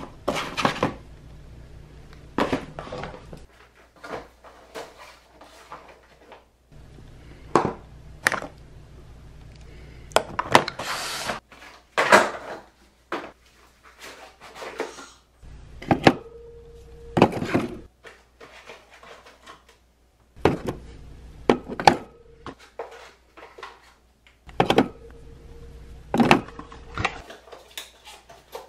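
Small lidded cosmetic jars and cardboard shipping boxes being handled on a table: scattered clicks and knocks as jars and boxes are picked up and set down, with a brief rustle of cardboard about ten seconds in.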